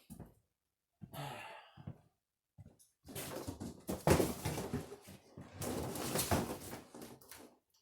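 Cardboard packaging being handled and shifted: irregular rustling and scraping, a few short scuffs at first, then denser and louder from about three seconds in.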